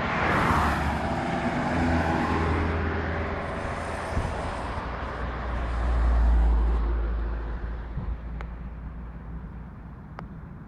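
Road traffic passing close by: a van drives past about six seconds in, its engine and tyres swelling deep and loud and then fading. Another loud rushing pass comes in the first two seconds.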